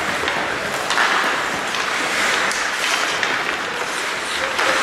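Ice hockey play on an indoor rink: a steady hiss of skates on the ice, with scattered clicks of sticks and puck.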